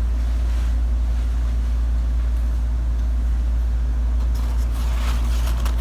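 A steady low hum, with a brief rustle near the end.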